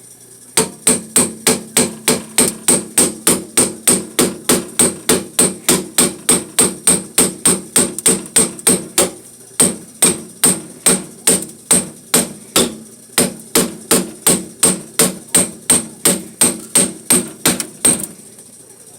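Rapid, regular blows of a tool striking and chipping at built-up ice in a refrigerator's freezer compartment, about three a second with a short break about halfway through.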